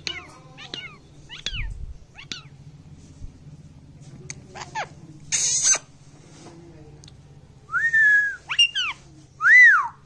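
Indian ringneck parakeet calling: a run of short, quick chirps, a brief harsh noise about halfway through, then from near the end a string of loud arched squawks.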